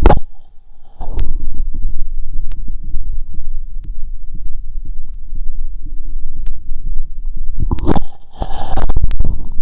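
Heartbeat heard through a stethoscope chestpiece after a 2 km run, a continuous low throbbing. A brief loud scrape at the start and a longer, louder rustling scrape about eight seconds in are stethoscope handling noise.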